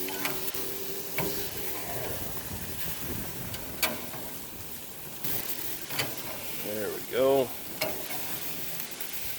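Ribeye steaks sizzling on aluminium GrillGrates over a TEC Patio II infrared grill, a steady hiss of searing meat. A few sharp clicks cut through it, and a brief voice sounds about seven seconds in.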